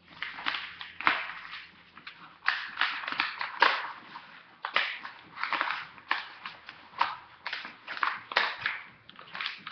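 A sheet of paper being rolled up by hand, crinkling and rustling in a string of irregular sharp crackles.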